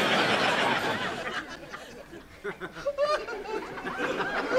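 Sitcom studio audience laughing at a joke, loud at first and dying away over about two seconds.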